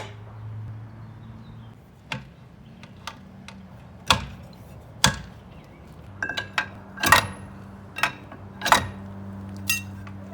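Irregular knocks and clinks of tools striking metal parts, about a dozen sharp strikes, some with a short ring and the loudest in the second half, over a steady low hum.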